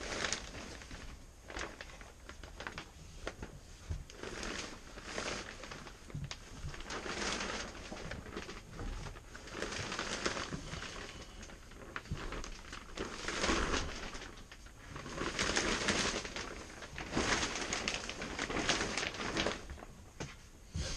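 Shrink-wrap plastic sheeting rustling and crinkling in irregular swells as it is unfolded and pulled across a boat's hardtop, louder in the second half.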